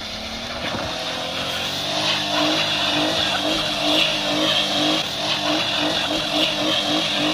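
Maruti Suzuki Alto K10's small three-cylinder petrol engine revving hard under load as the car claws up a loose dirt slope, its tyres spinning and scrabbling on gravel. The sound grows louder over the first two seconds, then holds with a pulsing engine note.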